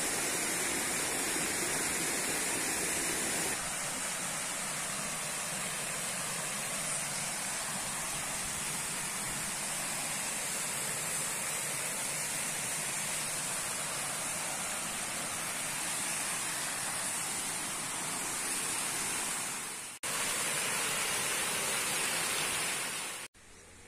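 Steady rushing of water in a shallow, rocky forest creek, with a small waterfall splashing near the end.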